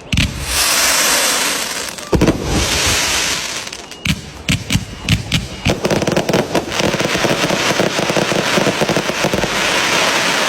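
Fireworks going off: two sharp bangs about two seconds apart, each followed by a dense crackling hiss, then a fast run of many crackling pops through the second half.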